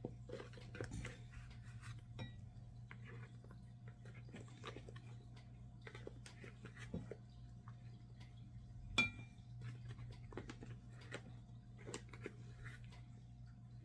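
Faint taps and clicks of a plastic spice jar and measuring spoon as turmeric is shaken out, with one sharper clink about nine seconds in, over a low steady hum.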